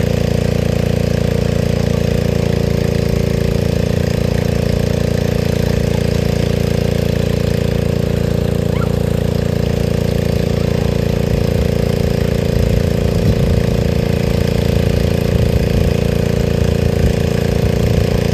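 An engine running steadily at an even speed, with some low rumbling and bumping in the second half.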